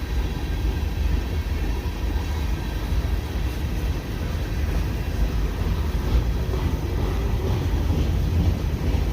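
CN freight train A422 rolling past, a steady low rumble of railcar wheels on the rails, heard from inside a car.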